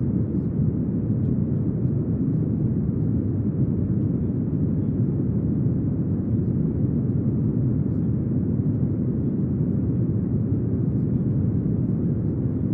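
Brown noise: a steady, deep hiss weighted heavily toward the low end, unchanging throughout.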